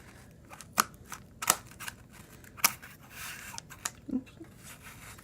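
Scissors snipping at toy packaging: a few sharp, separate snips at uneven intervals, with a short rustle of the packaging about three seconds in.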